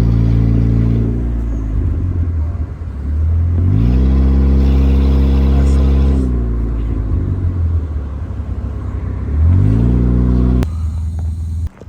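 Car engine idling and being revved twice, each time climbing quickly, holding at high revs for a couple of seconds, then dropping back. The second rev breaks off abruptly near the end.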